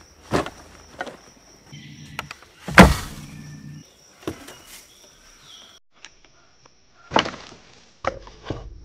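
Scattered knocks and clunks of camping gear being handled and set down on a wooden board. The loudest knock comes about three seconds in, and a few more come near the end.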